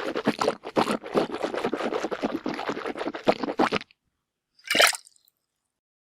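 Mouthwash sloshing rapidly around a person's mouth in quick, irregular wet squishes that stop abruptly, followed about a second later by a single short burst as the mouthwash is spat out.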